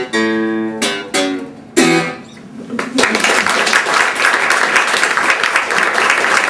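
Guitar strumming the closing chords of a song, ending on a last chord about two seconds in that rings out and fades. About three seconds in, an audience starts applauding and keeps on clapping.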